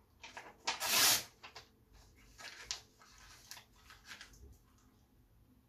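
A bite of printed paper torn off with the teeth, a loud rip about a second in, followed by the paper being chewed in the mouth in a string of small crackly crunches that die away before the end.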